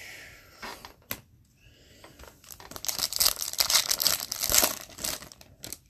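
Wrapper of an Upper Deck hockey card pack being torn open and crinkled: a dense crackling from about two and a half seconds in until just before the end, after a single sharp click about a second in.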